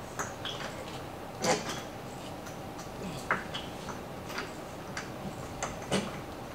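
Scattered light clicks and clinks of hand tools and parts being handled during brake work, about eight in all, the loudest about one and a half seconds in.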